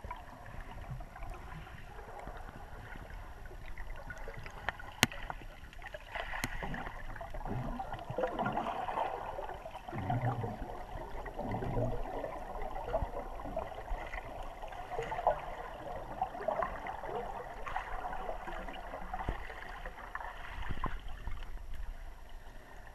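Muffled underwater sound picked up inside a GoPro's waterproof housing: water sloshing and gurgling around the camera as it moves, with two sharp clicks about five and six and a half seconds in.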